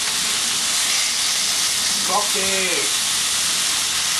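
Tuna steaks sizzling steadily in a very hot pan as they are turned over. A short vocal sound breaks in about halfway through.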